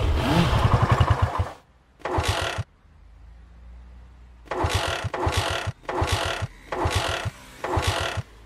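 Motorbike engine being cranked by its electric starter in about six short bursts, each lasting half a second to a second with pauses between; it turns over but does not catch, so the bike is failing to start.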